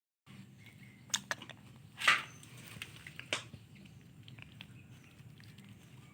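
Dogs playing on a hard floor: a cluster of sharp clicks about a second in, a short loud noisy burst about two seconds in, and another sharp sound a little after three seconds, then faint ticks over a low steady hum.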